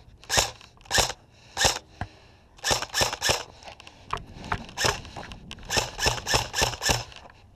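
Airsoft electric rifle firing about a dozen single shots, each a sharp crack, in uneven groups of one to five.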